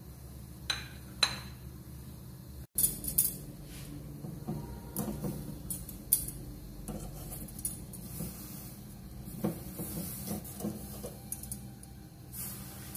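Steel tongs clicking and clinking against a wire roasting rack as whole tomatoes are turned over a gas flame: scattered light metallic knocks over a steady low hum.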